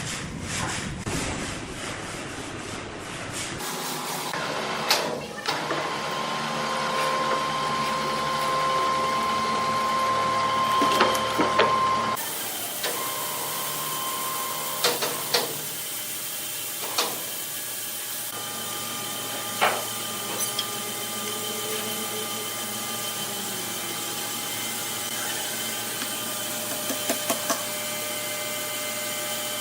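Woodworking machinery running with a steady hum and held whine, with sharp knocks of wood now and then; the sound changes abruptly twice as the shots cut.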